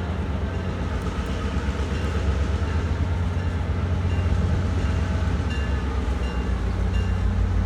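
Diesel locomotive approaching with a train, its low engine drone growing steadily louder.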